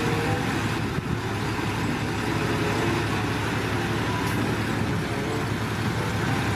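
Diesel engine of a tandem-axle dump truck running steadily at raised revs while its hydraulic hoist lifts the loaded bed to tip out soil.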